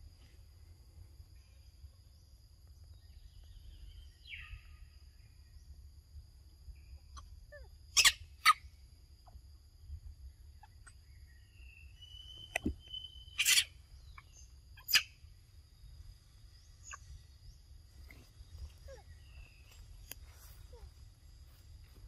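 Outdoor ambience: a low rumble and a faint steady high hum, broken by a few sharp, brief calls. Two come close together near the middle, a short whistled note follows, then two more a few seconds later.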